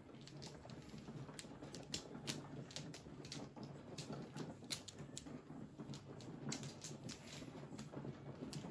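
Mahjong tiles clicking and clacking as players draw blocks of tiles from the walls and set them up in their hands during the deal: quick, irregular clicks with no steady rhythm.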